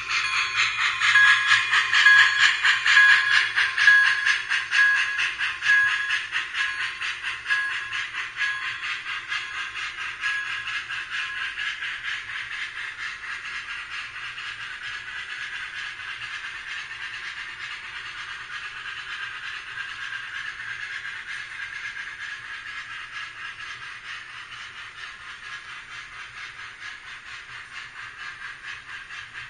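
Sound system of an MTH HO scale Union Pacific Big Boy model steam locomotive: rapid steam chuffing with hiss, loudest in the first few seconds and fading steadily as the engine pulls away, while the empty coal hopper cars roll past on the track.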